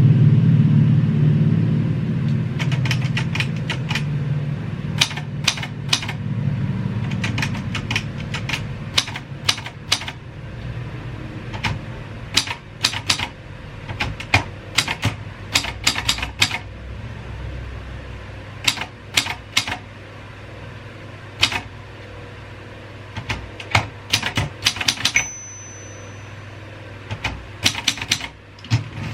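Keys of a 1950s Royal 202 manual typewriter struck in quick runs of clacks with short pauses between them. A low rumble sits under the typing at first and fades away over the first third.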